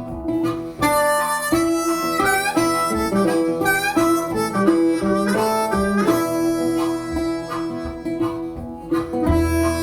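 Background music: harmonica melody with bending notes over acoustic guitar.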